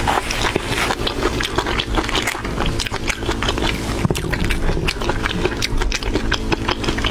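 Close-miked crackling and wet squelching as a marinated shrimp's shell is cracked and peeled apart by hand, with rapid small clicks throughout.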